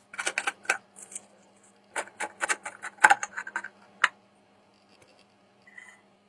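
Irregular clicks, taps and light scrapes of a small metal oil can and its parts being handled, densest in the first four seconds, over a faint steady low hum. A brief faint squeak comes near the end.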